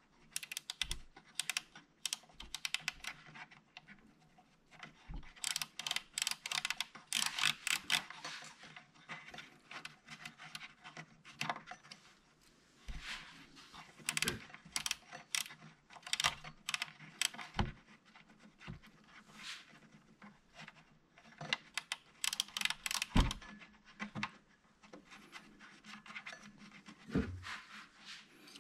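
Quick, irregular clicking and scratching in clusters as fingers work at the volume potentiometer and its wiring inside a Carver PM-900 power amplifier, which is being cleaned to cure its sound cutting out.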